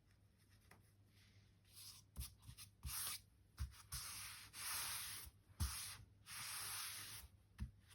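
Hands rubbing and pressing paper down onto a glued binder cover: short scratchy strokes with a few soft knocks, then two longer rubs of about a second each.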